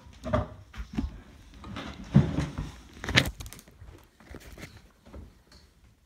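Irregular footsteps and knocks of people going down into a basement, mixed with handling noise from a phone held against a wall. The loudest thumps come about two and three seconds in, and things go quieter near the end.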